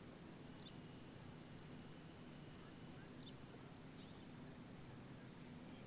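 Near silence: faint open-field ambience with a steady low hum and a few faint, short high chirps, like distant birds.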